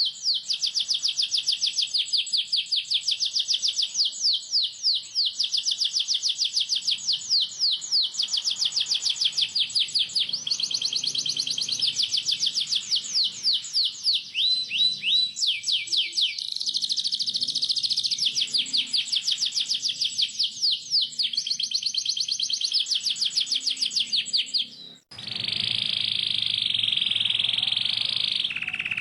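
Canary singing a long, fast rolling song: strings of quick downward-sweeping chirps at about seven a second. About 25 s in, the song cuts off abruptly and is followed by a denser, steady buzzing trill.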